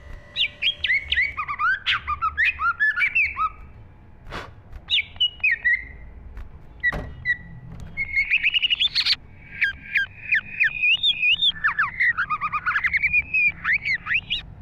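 Green leafbird (cucak ijo) singing a fast, varied chatter of quick rising and falling whistles in three bursts with short pauses between them, with a few sharp clicks.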